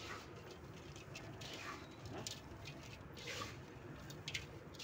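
Damp feed concentrate being mixed by hand with water and mineral mixture. It makes faint, irregular, short rustling and scraping sounds, about one every half second to a second.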